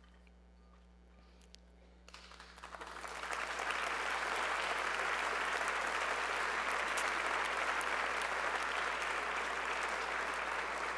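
Near silence for about two seconds, then an audience breaks into applause that builds over a second or two and carries on steadily.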